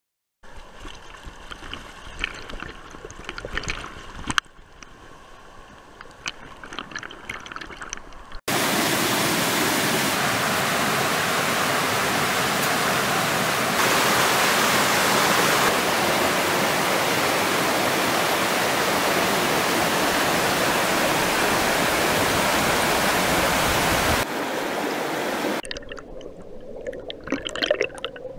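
Rocky mountain stream running over boulders. It starts as a softer babble with small splashes, turns to a loud, steady rush about a third of the way in, and near the end gives way to underwater bubbling and gurgling.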